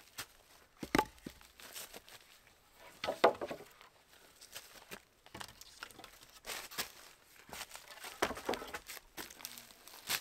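Footsteps crunching and rustling through dry leaf litter and twigs, uneven and irregular, with a few sharp snaps. The loudest crunch comes about three seconds in.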